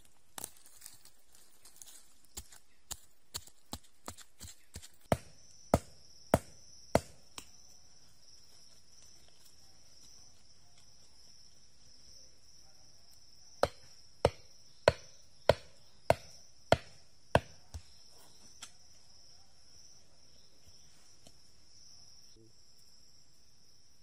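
Chopping: sharp blows at a steady pace of a little under two a second, with four strokes about five seconds in and a run of seven more from about fourteen to seventeen seconds, after lighter taps at the start. Insects shrill steadily in the background from about five seconds on.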